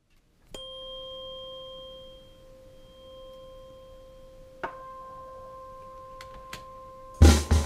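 528 Hz tuning fork struck, ringing a steady pure tone with a faint higher overtone. It is struck again about four and a half seconds in and rings on. Near the end a drum kit comes in loudly with drums and cymbals.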